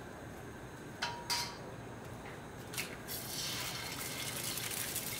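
Kitchen crockery handling: two sharp clinks about a second in, one ringing briefly, then a knock as a ceramic mug is set down on a wooden counter, followed by about three seconds of steady hiss.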